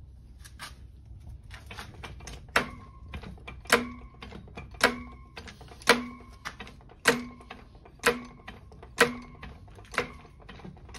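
Sharp metallic knocks, evenly spaced about once a second, each ringing briefly with a clear tone.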